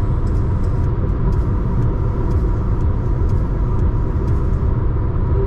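Car driving at speed on a highway: a steady low rumble of road and engine noise.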